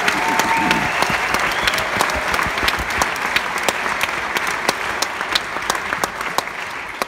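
Theatre audience applauding: many hands clapping steadily, dying away near the end.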